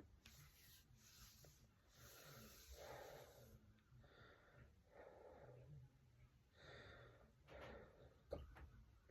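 Faint breathing in and out, a soft swell about every two seconds, broken by one short, sharp hiccup near the end.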